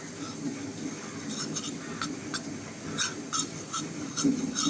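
Cornflour and water being stirred together in a bowl into a slurry: a run of short, irregular ticks and scrapes, about two or three a second, starting about a second in.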